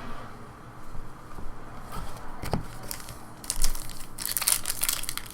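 Foil trading-card pack wrapper crinkling and tearing, with cards handled and tapped; a single knock about halfway, and the crinkling turns dense near the end.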